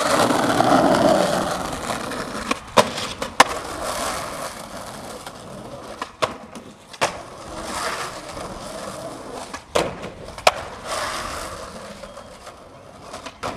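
Skateboard wheels rolling on rough asphalt, broken by several sharp clacks of the board popping, landing and hitting the ground as tricks are tried.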